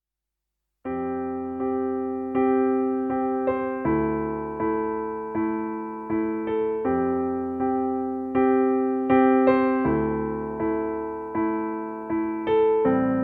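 Background music: an electric piano playing slow, gentle chords, a new chord struck about every three-quarters of a second and dying away. It starts suddenly about a second in, out of silence.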